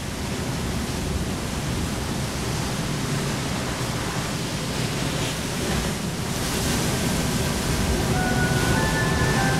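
Steady rushing noise of wind and sea waves. About eight seconds in, held music notes start to sound over it.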